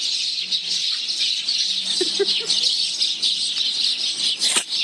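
A dense, continuous chorus of small birds chirping, many quick high notes overlapping.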